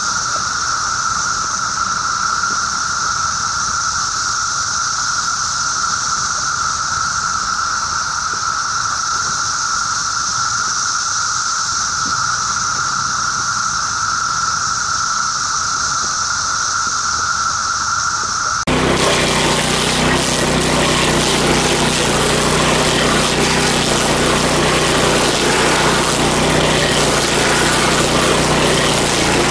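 A steady high whine for about the first two-thirds. Then an abrupt change to a louder, fuller noise: a Power King stump grinder's engine running steadily while its cutter wheel grinds.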